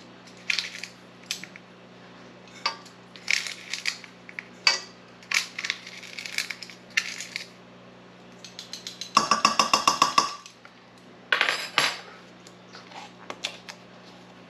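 Small metal measuring spoon clinking and scraping as dry yeast is scooped and added to a stainless steel stand-mixer bowl, with a quick run of about a dozen taps about nine seconds in.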